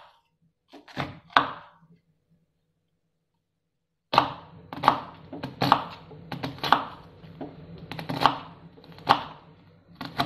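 Small knife chopping shallots on a plastic cutting board: two knocks about a second in, a silent gap of about two seconds, then a run of irregular knife strikes, about one or two a second.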